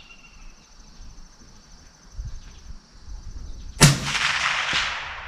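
A single shot from a suppressed Ruger SFAR .308 rifle, fired about four seconds in: one sharp crack with its echo trailing off over about a second and a half.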